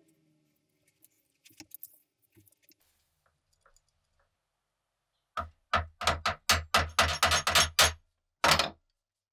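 Faint metal clinks of a steel crossguard being fitted onto an M1 Garand bayonet's tang, then about a dozen sharp metal knocks in quick succession as the bayonet's steel parts are knocked into place, a short pause, and one more knock near the end.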